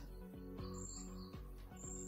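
Faint background music of soft, sustained notes, with a brief high tone about a second in and again near the end.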